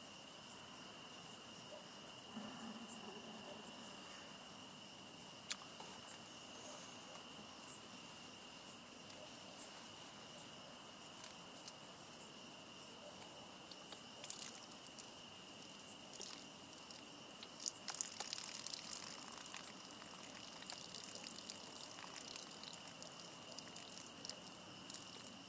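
Crickets chirping steadily as one continuous high trill, with a few faint ticks and rustles scattered through it, most of them past the middle.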